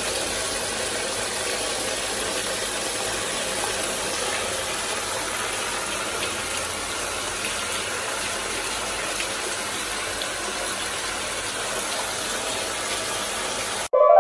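Bath tap running full force into a brimming bathtub: a steady rush of water splashing into the filled tub. It cuts off suddenly near the end, as a rising synth chime begins.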